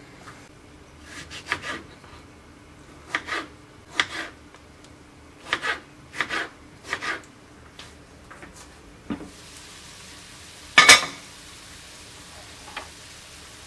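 Kitchen knife cutting tomatoes on a wooden cutting board, a run of separate sharp knocks. Then a steady sizzle of chopped vegetables frying in a pan, with a loud clank of the glass pan lid about eleven seconds in.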